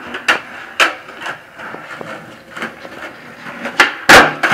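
Skateboard wheels rolling on concrete with a few clacks. Near the end comes the pop of the tail, and a moment later a loud smack as the board lands back under the skater's feet after a flip trick.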